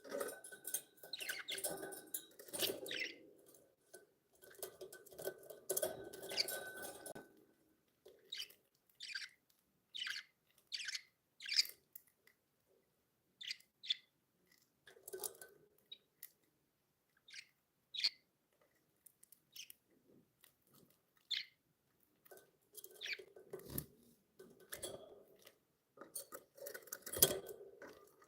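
Pet budgerigars chirping: many short, separate high chirps, with denser, lower-pitched noisy stretches near the start and toward the end.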